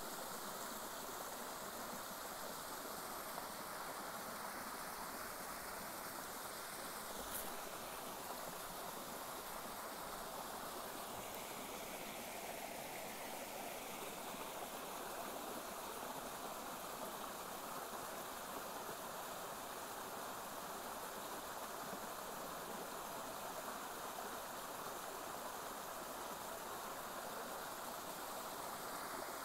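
Steady rush of a flowing stream, unbroken throughout.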